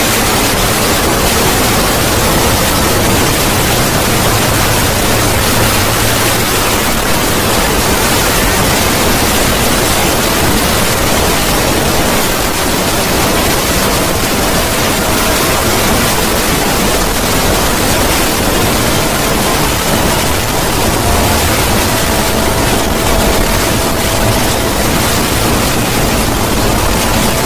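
Loud, harsh, static-like noise filling every pitch at an even level: a heavily distorted 'void scream' sound effect. A faint steady tone comes in about twenty seconds in.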